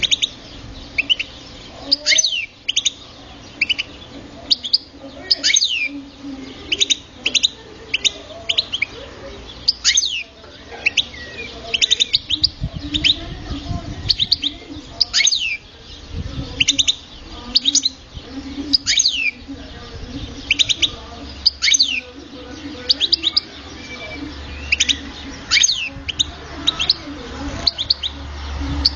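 Young captive European goldfinch (chardonneret) singing: short, sharp high notes, many sliding quickly down in pitch, repeated throughout with brief pauses between phrases.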